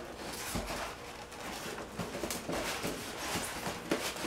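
Rustling and light clicks and knocks of small parts and packaging being handled and pulled out of a box.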